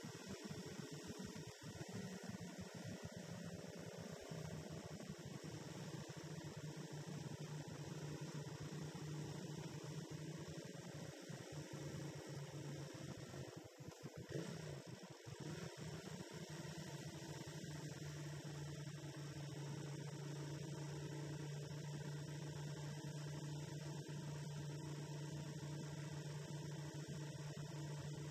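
Steady low hum of a motorcycle engine and road noise at cruising speed, picked up by a camera mounted on the bike.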